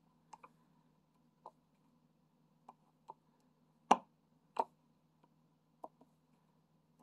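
Diamond painting drill pen picking up and dabbing small resin drills onto the sticky canvas: light, irregular clicks and taps, about nine in all, the loudest about four seconds in, over a faint steady hum.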